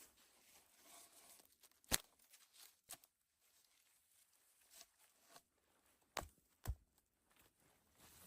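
Wood and branches snapping and knocking during shelter building in snow. A few sharp cracks over near silence: the loudest about two seconds in, and two more close together past the six-second mark.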